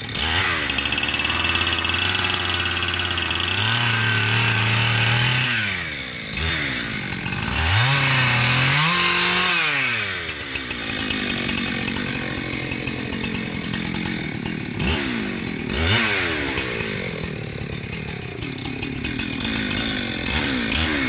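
Chainsaw engine revving up and dropping back several times as it cuts into a rotten tree, with the pitch climbing high around the middle and again near the end.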